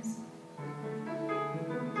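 Acoustic guitar accompaniment playing a few ringing notes between sung phrases, right after the singer's held note ends at the start.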